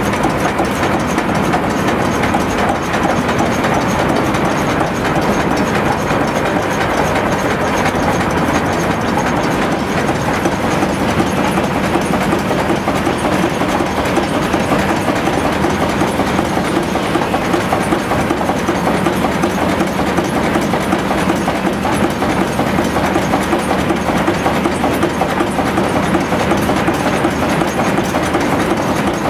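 Atlas horizontal steam engine running steadily, its flywheel and drive belts turning, with steam escaping around the cylinder.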